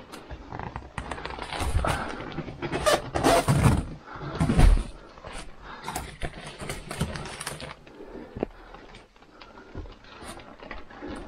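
Plastic-wrapped packs of Knauf NaturBoard insulation crinkling, rustling and bumping as they are handled and shoved along, with a heavy thump about four and a half seconds in.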